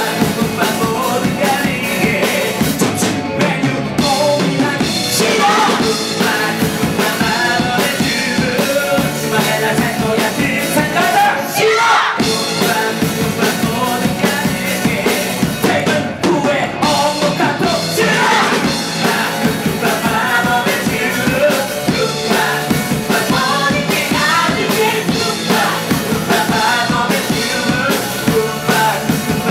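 A man singing live into a microphone over an upbeat rock-style song with a drum kit beat, amplified through a theatre's sound system.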